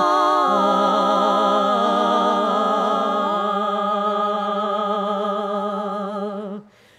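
Four women's voices singing a Russian folk song a cappella in close harmony, holding a long wordless chord with vibrato. A low note stays steady while the upper voices shift, and all stop together about six and a half seconds in.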